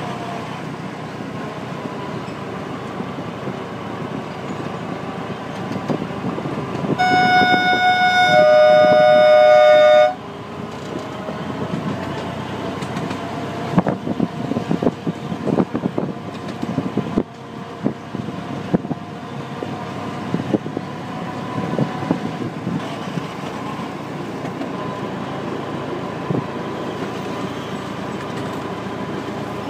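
Ride-on miniature railway locomotive running steadily along the track. About seven seconds in its horn sounds for about three seconds, a second, lower note joining partway, then cuts off suddenly. A run of irregular clicks and knocks follows a few seconds later.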